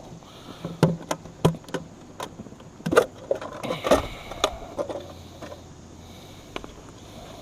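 Clicks, taps and light knocks of gear being handled as a camera is got out. They come thick for the first four or five seconds, then thin out.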